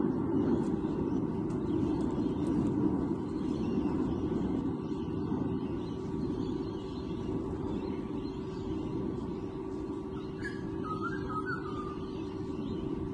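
Steady low outdoor rumble with a faint constant hum. About ten seconds in, a bird gives a few short calls.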